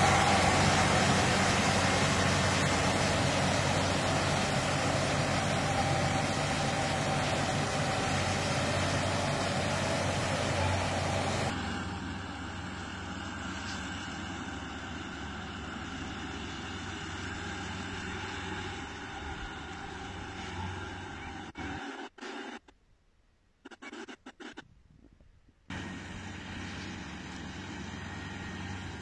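Kubota PRO588 mini combine harvester running with a steady engine hum. The sound drops sharply about eleven seconds in and cuts out briefly for a few seconds near the end, as if between takes.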